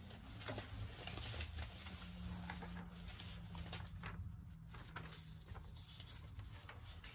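Magazine pages being leafed through by hand: paper rustling with many small, irregular flicks and crinkles.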